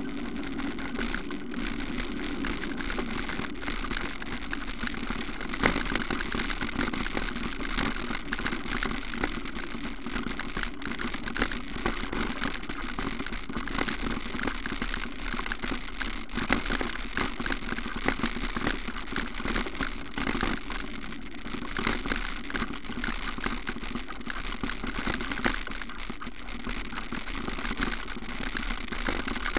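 A vehicle travelling over a rough track: a steady rumble with continual small rattles and knocks from the ground and the camera mount.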